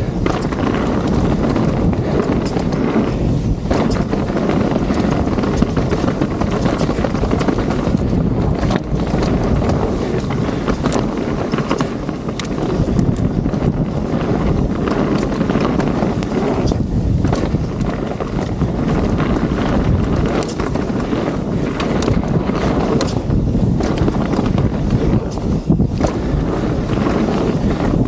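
Wind rushing over the microphone on a fast mountain-bike descent, over the steady noise of tyres rolling on dirt, with frequent short clicks and rattles from the bike over rough ground.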